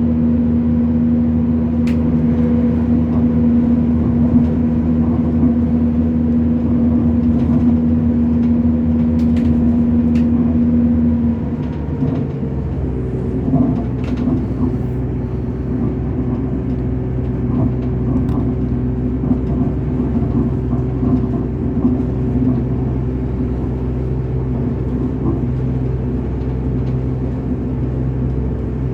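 Diesel train running, heard from on board: a steady engine and running drone with a few light clicks. About twelve seconds in the drone changes to a different, slightly quieter pitch and then holds steady.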